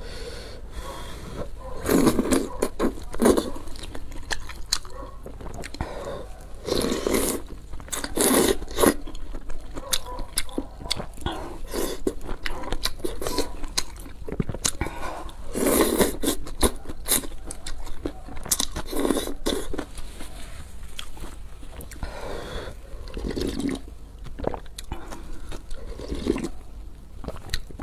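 Close-up eating sounds: noodles and broth slurped from a wooden spoon and chopsticks in loud bursts every few seconds, with chewing in between.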